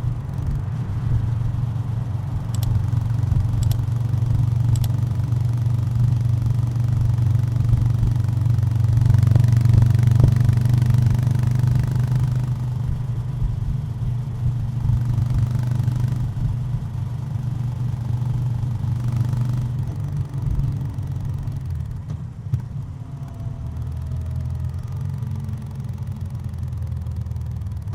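Honda GB350's air-cooled single-cylinder engine running under way, its low exhaust note growing to its loudest about a third of the way in. It eases off after about two-thirds of the way and settles to a lower, steadier note near the end.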